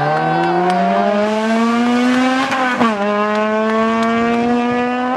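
Rally car engine accelerating hard, its pitch climbing through one gear, dropping sharply at an upshift a little over halfway through, then climbing again.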